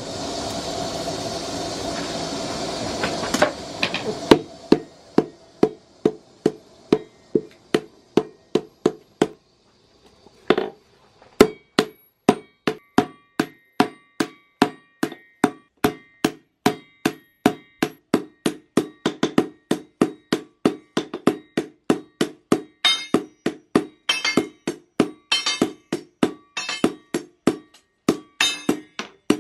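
Blacksmith's hammer forging chainsaw-bar steel on an anvil: a steady run of ringing blows, about three a second, with a short pause about ten seconds in. A steady rushing noise sounds under the first few seconds.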